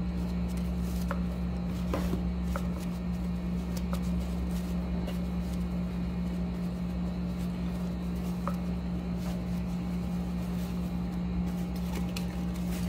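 A steady low hum runs throughout, with a few faint clicks and rustles from hands handling a cardboard gift box and pulling at its ribbon.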